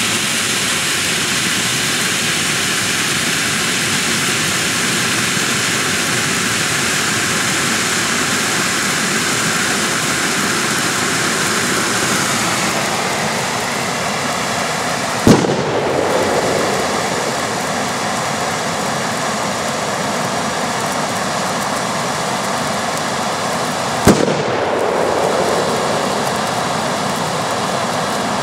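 Bundle of Jorge Bengal flares burning with a steady, loud hiss, broken by two sharp bangs: one about fifteen seconds in and another about nine seconds later.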